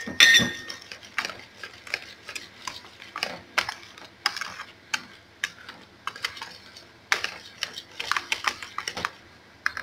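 Wire balloon whisk beating thick plantain pancake batter in a bowl: irregular clicks and taps of the wires against the bowl's sides, a few a second, with a louder clatter right at the start.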